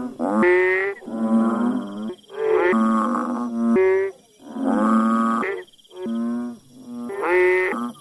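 Banded bullfrog (Asian painted frog) calling over and over: about seven low, steady-pitched calls, each about a second long, with short breaks between them.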